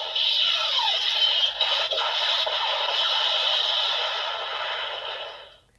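Kamen Rider Saber DX Kaenken Rekka toy sword playing its electronic Issatsu Geki finisher sound effect through its built-in speaker. It is a loud, dense hissing effect with music, with a brief gliding tone about a second in, and it fades out and cuts off near the end.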